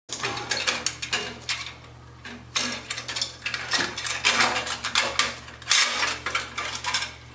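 Ratchet clicking in several short runs, loosening the screw clamps that hold a motorcycle exhaust heat shield.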